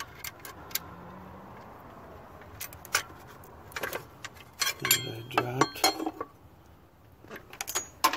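Metal tools and small parts clinking and clicking in a car's engine bay as the alternator wiring and hardware are handled, with scattered sharp clicks and a denser run of clinks about halfway through that includes a brief metallic ring.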